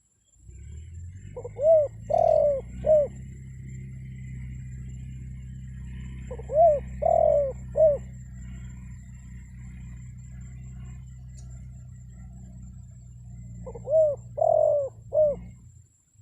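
Spotted dove cooing: three phrases of three arching coos each, roughly six seconds apart, over a low steady hum. This is the call of a tame decoy dove used to draw wild doves to answer.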